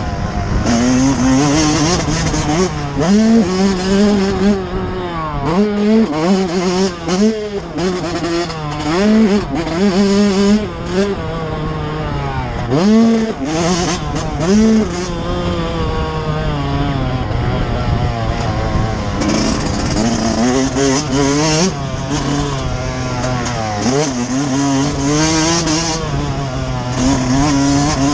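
Yamaha YZ125's 125 cc single-cylinder two-stroke engine revving hard and dropping off again and again as the bike is ridden round a dirt motocross track, heard from the rider's helmet camera with wind noise. The pitch climbs through the gears and falls sharply whenever the throttle is shut for a corner, with a longer steady run about halfway through.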